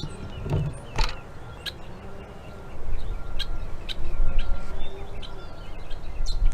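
Small birds chirping in short, scattered calls, over a low rumbling noise that gets louder about three seconds in.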